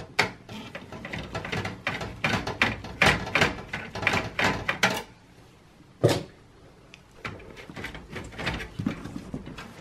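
Phillips screwdriver turning out a screw in a metal computer case: a quick run of clicks and scrapes for about five seconds, one sharp click about six seconds in, then softer handling noises near the end.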